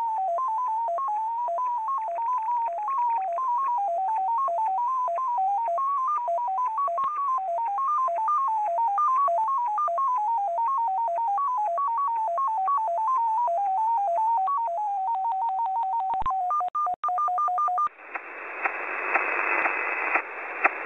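XPA Russian polytone numbers station heard over a shortwave receiver in upper sideband: a single tone hopping between pitches several times a second, an MFSK digital mode sending number groups. About fifteen seconds in it settles on one steady low tone, then alternates between a low and a high tone, and near the end the transmission stops, leaving band hiss.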